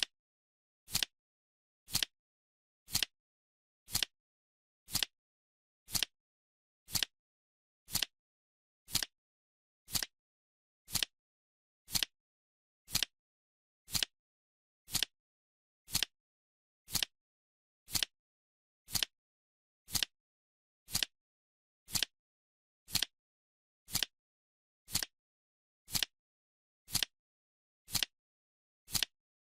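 Clock-style ticking sound effect of a countdown timer: one short, crisp tick every second, evenly spaced, with dead silence between ticks.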